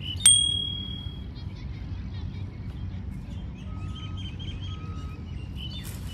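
Steady outdoor background noise with faint bird chirps in the second half. Just after the start, a single sharp click is followed by a short, high ringing tone.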